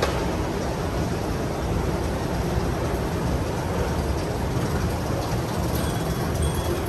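Steady low rumbling noise, with faint short high-pitched tones coming and going near the end.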